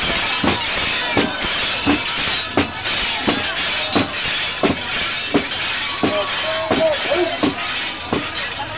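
Mikoshi (portable shrine) procession: a crowd of bearers chanting and shouting, with a sharp jingling clank repeating about every three-quarters of a second as the shrine is jostled along.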